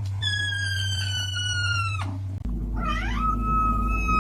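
A cat making two long, high, squeaky meows. The first slides slowly down in pitch; the second swoops up about half a second in and then holds one pitch. A steady low hum runs underneath.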